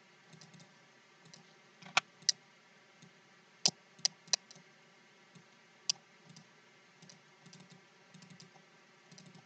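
Half a dozen sharp, scattered clicks of a computer mouse and keyboard, most of them between about two and six seconds in, some close together in pairs, over faint steady hiss.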